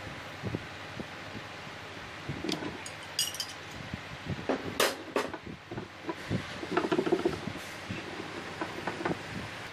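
Metal clinking and knocking as a wrench and fingers work the nuts on a steel threaded rod: scattered clicks and taps, with the loudest cluster about five seconds in and another around seven seconds.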